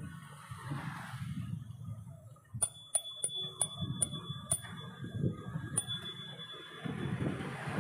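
A bicycle bell rung in a series of about seven quick dings, starting a few seconds in, over a low rumble of wind and road noise from riding.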